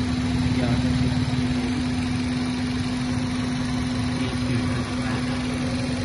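Suzuki Baleno's M15 four-cylinder petrol engine idling steadily with an even hum, heard close up in the engine bay.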